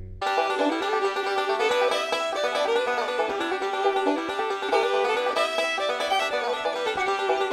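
Background music: a lively instrumental tune of quick, busy notes that starts just after a decaying tone ends.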